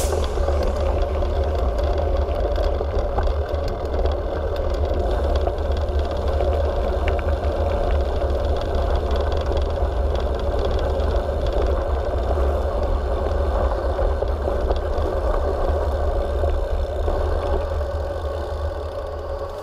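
Wind buffeting the camera microphone and mountain-bike tyres rumbling over a gravel road at speed, with small rattles and clicks from the bike. The sound changes near the end as the bike rolls from gravel onto the concrete deck of a bridge.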